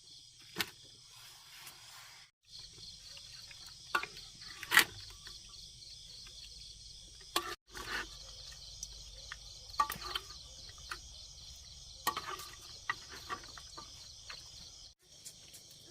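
A steady, finely pulsing chorus of insects such as crickets, which breaks off briefly a few times. Scattered sharp clicks and knocks sound over it, the loudest about five seconds in.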